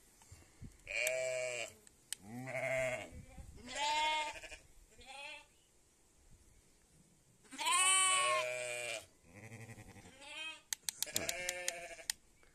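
Sheep and lambs bleating, about seven separate calls with the loudest about eight seconds in. Near the end a quick run of sharp clicks comes as the dial of a plastic garden-irrigation timer is turned.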